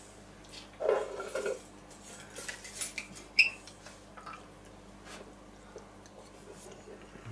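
Cutlery clinking and scraping on a plate during a meal: scattered light clicks, with one brighter ringing clink about three and a half seconds in.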